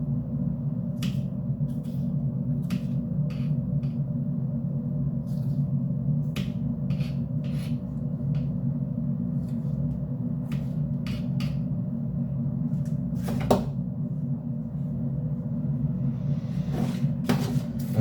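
Steady low hum with scattered light clicks and knocks from kitchen work with utensils and dishes, and a sharper knock about two thirds of the way through.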